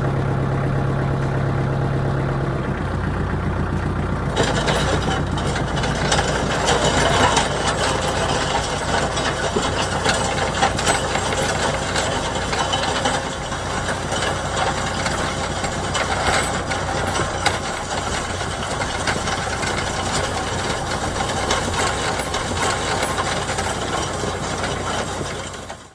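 Tractor engine running steadily. From about four seconds in a loud gritty scraping and crunching joins it, typical of a grader box with a ratchet rake dragging through driveway gravel.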